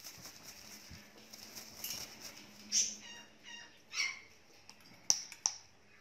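Parrot wings flapping at the start, then short parrot calls, a few squawking, whistle-like notes about three and four seconds in, and two sharp clicks near the end.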